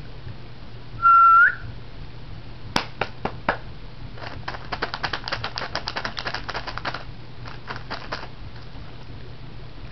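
A short whistle about a second in, one steady note that rises at its end. Then a cat crunching a Cheez-It cracker: a few sharp crunches, followed by about three seconds of rapid crunching and a last few crunches.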